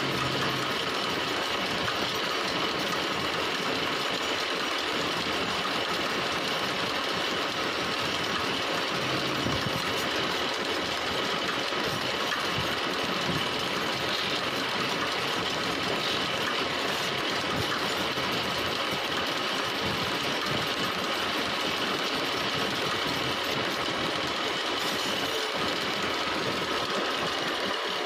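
Wood lathe running steadily with a continuous mechanical rattle, while a hand-held chisel and then sandpaper work the spinning wooden hammer handle.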